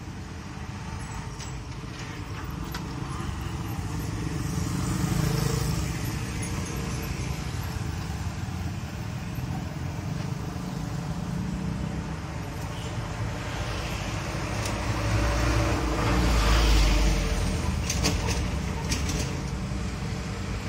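Street traffic of motorcycles and small vehicles passing close by. It swells as vehicles go by about a quarter of the way in and again, with a deeper rumble, in the later part.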